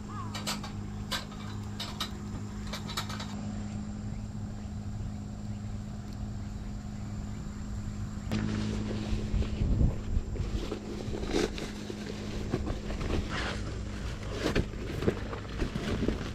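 Wood fire burning in a small folding steel fire pit, with a few sharp clicks in the first three seconds, over a steady low hum. From about eight seconds in come louder handling and rustling noises with some low thumps.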